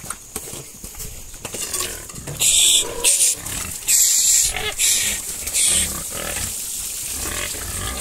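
Pigs squealing in about five loud, harsh bursts between about two and a half and six seconds in, with lower grunting and snuffling around them as they jostle at a feed trough.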